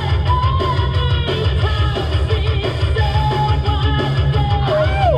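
Background rock music with guitar and drums: a held melody line that slides between notes, bending down near the end.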